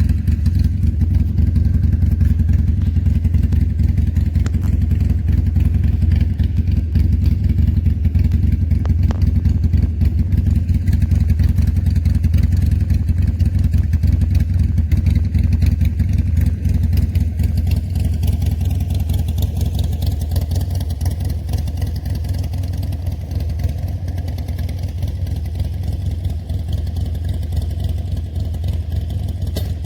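Harley-Davidson Sportster's air-cooled V-twin running steadily through Harddrive Radium slip-on mufflers with removable baffles, a deep, loud exhaust rumble. It drops a little in level about halfway through.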